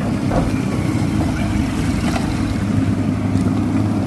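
A motor engine running with a steady low drone, with some wind noise on the microphone.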